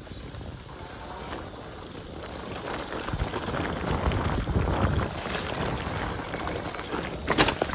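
Electric mountain bike rolling fast over a gravel trail: tyres crunching and the bike rattling over the loose stones, with wind buffeting the microphone. The rattling grows louder about three seconds in, and a sharp knock comes near the end as the bike hits a bump.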